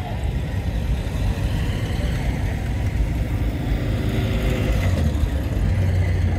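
Classic cars driving slowly past in a parade: a grey MGB GT's engine, then a Morris Minor Traveller's engine running at low revs, growing louder from about four seconds in as it passes close by.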